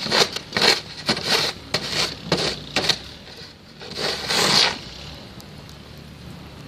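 Crunching and scraping in snow: a quick run of short crunches for about three seconds, then one longer scrape a little past the middle.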